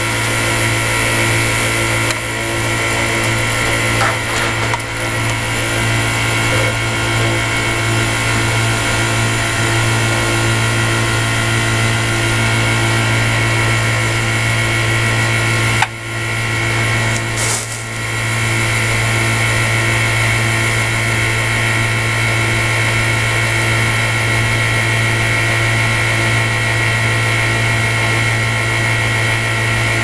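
A single-phase 3-ton Climate Master water source heat pump running in heating mode, heard up close with its panel open: a steady mechanical hum from its compressor and blower. A brief knock comes about halfway through.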